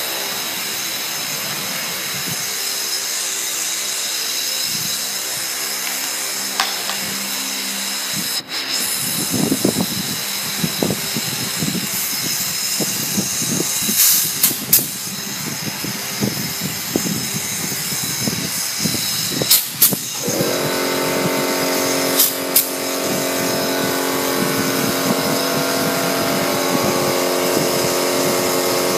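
Galvanised wire cage mesh rattling as it is handled, then several sharp shots of a pneumatic clip gun crimping rings to join the wire panels. A steady hum runs underneath and grows fuller about two-thirds of the way in.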